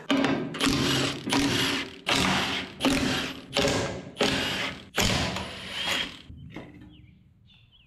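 Cordless impact wrench hammering in about ten short bursts as it backs out the bolts of an excavator hydraulic tank's cover plate one after another. The bursts stop about six seconds in.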